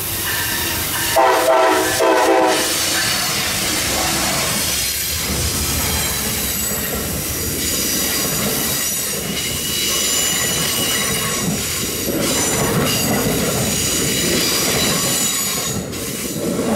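Amtrak ALC-42 Charger locomotive's horn sounding, ending in two short blasts about a second in, as the locomotive passes. Then the Superliner passenger cars roll by with a steady rush and high-pitched wheel squeal.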